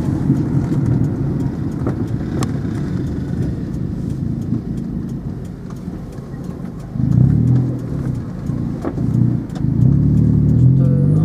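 Car engine and road noise heard from inside a moving car, with the engine picking up as the car accelerates about seven seconds in and again near the end.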